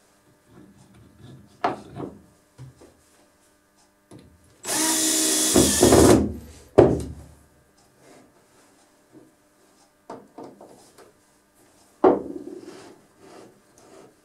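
Handheld power drill running once for about a second and a half at a stack of plywood discs. Wooden knocks and handling sounds from the discs being moved on the bench come before and after it.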